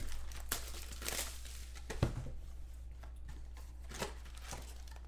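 Cardboard trading-card box being torn open and its flaps pulled back, with rustling and scraping of cardboard and one sharp click about two seconds in.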